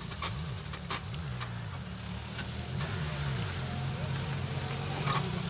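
Off-road 4x4 engine labouring and revving, its pitch rising and falling several times, with scattered sharp clicks and knocks.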